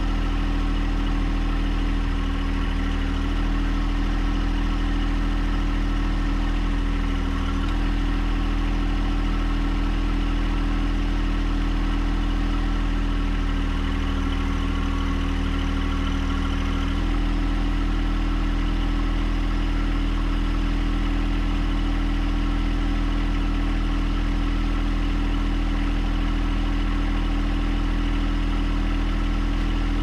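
John Deere 1025R compact tractor's three-cylinder diesel engine running steadily while the front-loader hydraulics lift the mower deck. Its note shifts briefly a few times: about two seconds in, near seven seconds, and for a few seconds in the middle.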